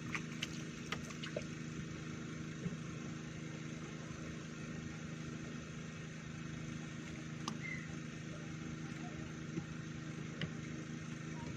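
A small engine idling steadily, a constant low hum with a few faint clicks over it.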